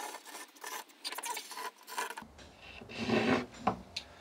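Chalk scraping across a blackboard as a trammel on a wooden stick swings out an arc, with small clicks and rubs of the trammel heads on the stick. The loudest scrape comes about three seconds in.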